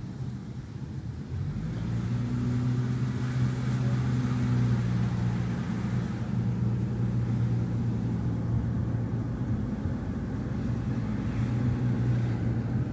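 Car engine and road noise heard from inside the cabin: a steady low drone that grows louder about a second and a half in.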